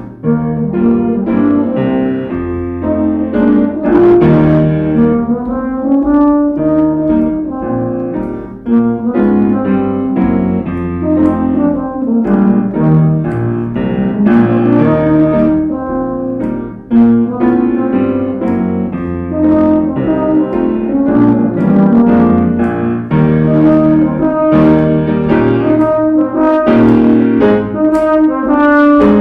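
Euphonium playing a melody with grand piano accompaniment.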